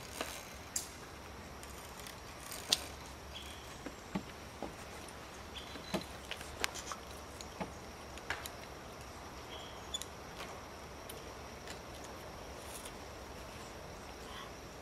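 Scattered sharp clicks and light knocks from a climber's gear on a treetop ropes course: metal safety clips on the steel cables and wooden footholds and platform. The loudest click comes a few seconds in, over a faint steady high hum.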